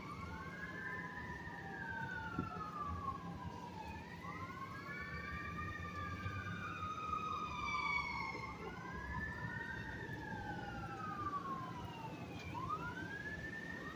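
Sirens wailing in slow rising-and-falling sweeps about every three to four seconds, two or more overlapping and out of step.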